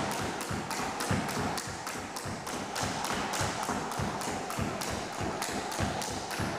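Skipping rope turning fast, its slap on a wooden floor coming about three times a second, with light thuds of feet landing in an alternate-foot skipping step.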